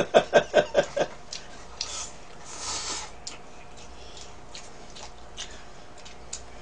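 Noodles being slurped from a bowl of cup ramen: a few short slurps between about one and three seconds in, the longest near three seconds, then faint chewing. It opens with about a second of rapid, rhythmic voiced pulses, the loudest sound here.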